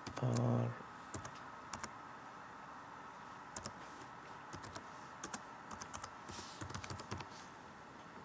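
Typing on a computer keyboard: irregular keystroke clicks in short scattered runs.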